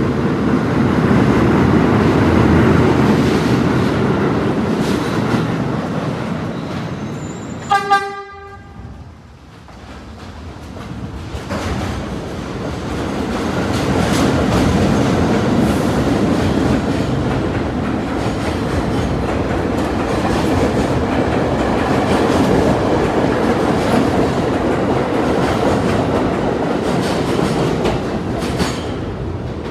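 R32 subway train running on the rails, with one short horn toot about eight seconds in. The sound then breaks off and the train noise builds up again and carries on.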